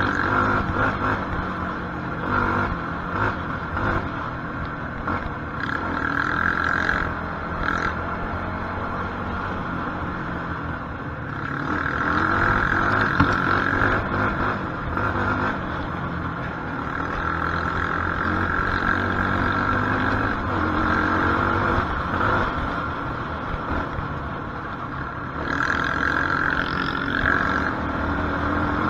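Quad bike (ATV) engine running while riding along a dirt trail, its revs rising and falling with the throttle.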